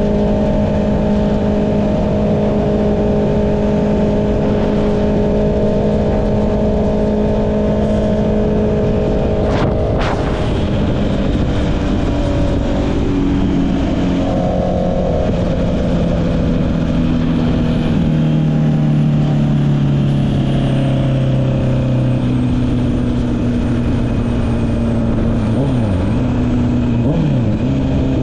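Honda CB650R's inline-four engine through an Akrapovic exhaust, heard while riding: it holds a steady note for about ten seconds, then after a sharp click the note drops and wanders lower, with two quick dips in pitch near the end.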